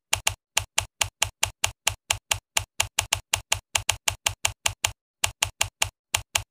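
Typewriter key-click sound effect: an even run of sharp clicks, about six a second, with a short pause about five seconds in.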